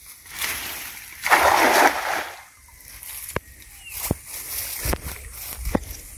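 A cast net lands on pond water with a loud splash about a second in, its ring of lead sinkers hitting the surface. A few short sharp clicks follow.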